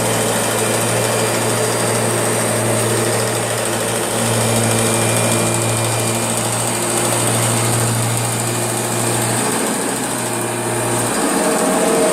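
Kirby G6 upright vacuum cleaner running steadily, making the strange noise it is recorded for: a steady motor whine with a low drone underneath that drops away near the end.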